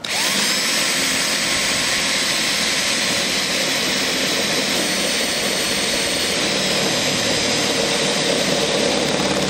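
Cordless drill spinning up with a short rising whine, then running steadily as a step drill bit cuts a hole through the truck's sheet-metal cab roof.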